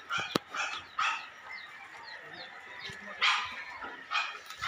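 A dog barking several times, the barks spaced a second or more apart.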